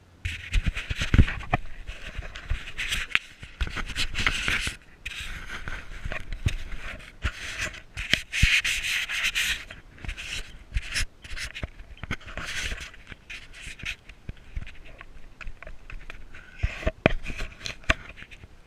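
Irregular rubbing and scratching noise with many small clicks and knocks, starting suddenly.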